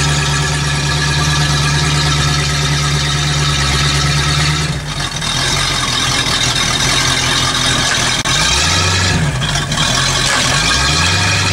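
The Four Winns cruiser's stern-drive engine running after a long lay-up, steady at first, its note shifting and wavering about five seconds in. The shop foreman spots that it is not pumping cooling water and calls for an impeller change.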